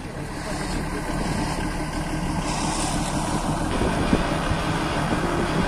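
Off-road 4x4's engine running with a rough, steady rumble that grows a little louder over the first second or so.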